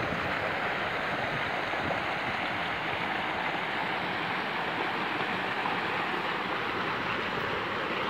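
Steady rush of flowing river water, an even noise that holds at one level throughout.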